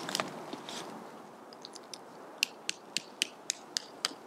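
Hands working a tent corner stake and its cord among dry leaves: rustling, then a quick run of about eight light clicks, roughly four a second, and a single heavier knock at the end.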